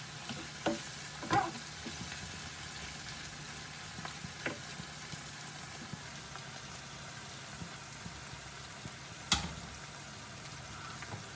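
Food frying in a pan with a steady sizzle, stirred with a utensil that knocks against the pan a few times, the loudest knock a little past nine seconds in.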